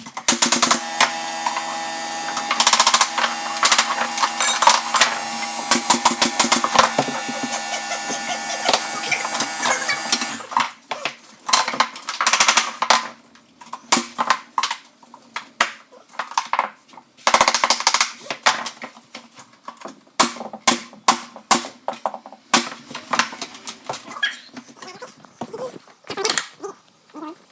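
A run of sharp knocks and clicks, dense and over a steady hum for about the first ten seconds, then sparser and irregular.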